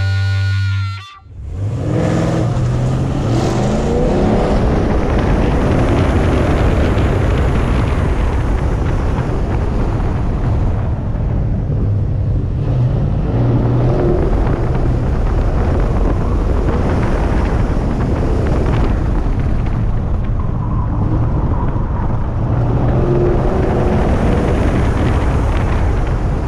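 A 1970 Chevrolet Chevelle's engine running hard through an autocross run, its pitch rising and falling as it accelerates and lifts between cones, heard from a hood-mounted camera with heavy wind and road noise.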